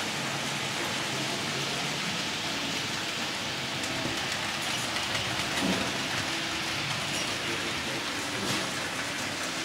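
A model train running on a model railway layout: a steady, even rushing noise of the train rolling along the track.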